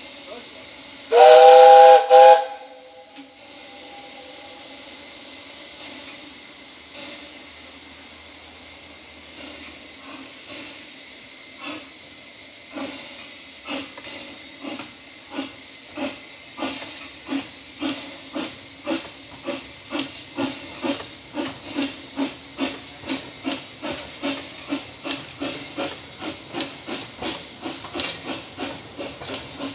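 Narrow-gauge saddle-tank steam locomotive Sir Haydn sounds a short whistle, then pulls away over a steady hiss of steam. Its exhaust chuffs start slow and grow louder and quicker, reaching about two a second as it gathers speed.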